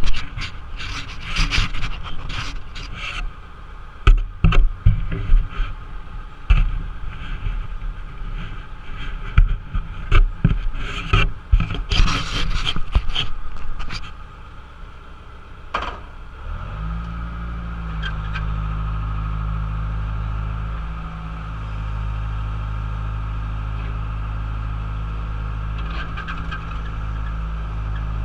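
John Deere 190E excavator at work: a run of knocks, bangs and scraping through the first half, then its diesel engine settles into a steady drone from about 17 seconds in.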